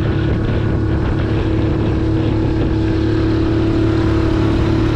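Honda 5 hp four-stroke outboard running steadily at cruising speed, pushing a small aluminium-hulled boat along, with the rush of water and wind over it.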